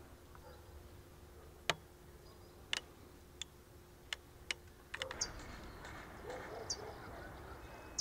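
Faint outdoor ambience: a handful of sharp, scattered clicks or snaps, then from about five seconds in a fuller rustling background with small birds giving short high chirps.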